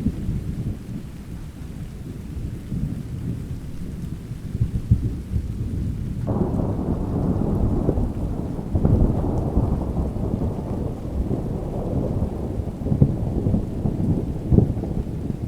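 Thunderstorm: thunder rumbling low and continuously over rain, breaking into a louder clap about six seconds in and another just before nine seconds, then rolling on.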